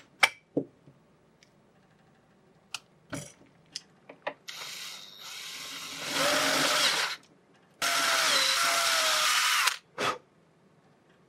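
Power drill boring a hole through a 3D-printed plastic part, running in two loud bursts of about one and two seconds with its motor pitch wavering under load. A few light clicks come first, and one more as it stops.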